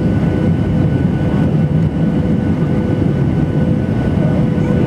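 Cabin noise of a Boeing 737-800 on approach, heard from a seat beside the wing: a steady low rumble of its CFM56-7B engines and rushing air, with a steady hum on top.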